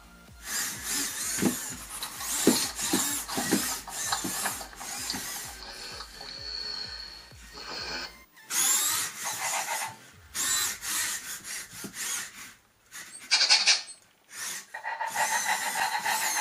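ClicBot robot dog's servo motors whirring in short stop-start bursts as its joints move, mixed with the robot's electronic chirping sound effects. A brief steady high beep sounds about six seconds in.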